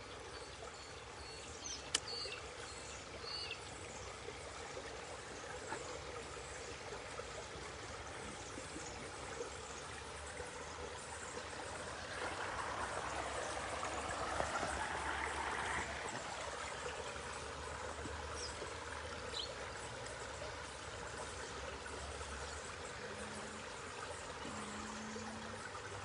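Shallow rocky creek rushing and splashing over boulders, a steady sound of running water that grows louder for a few seconds midway.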